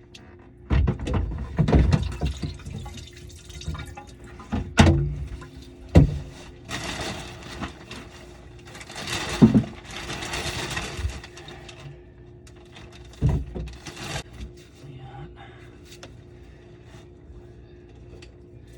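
Plumbing work under a kitchen sink: scattered knocks and clunks of parts and pipes being handled, with a stretch of water running or splashing in the middle.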